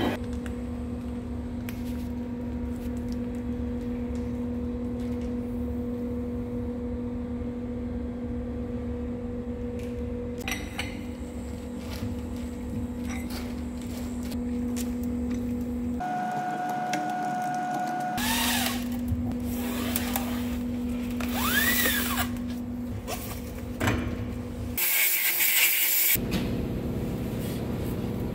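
Metal lathe running with a steady machine hum and occasional clinks of metal. About halfway through the hum gives way briefly to a higher steady tone, and near the end there is a short burst of hissing noise.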